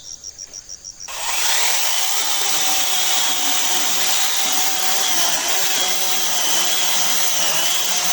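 Battery-powered electric chainsaw starts about a second in and runs steadily under load, its pitch wavering as it cuts through a soft, rotting log. Crickets chirp rapidly before it starts.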